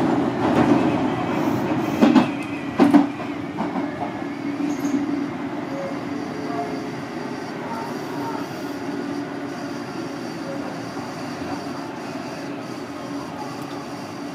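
Commuter train running on the rails, heard as a steady rumble, with a few sharp clicks from the wheels over rail joints in the first three seconds. The running noise slowly gets quieter.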